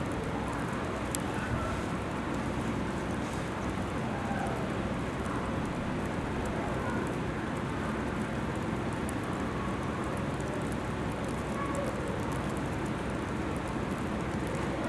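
Graupel, small ice pellets, falling and pattering on surfaces: a steady hiss scattered with sharp little ticks, over a constant low rumble.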